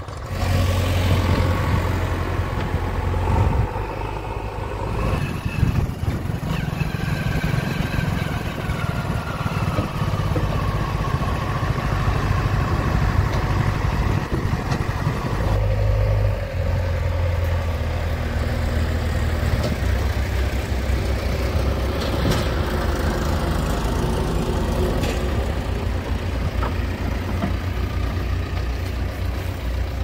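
Diesel engines running steadily: first a farm tractor pulling a trolley, then, from about halfway, a JCB backhoe loader driving.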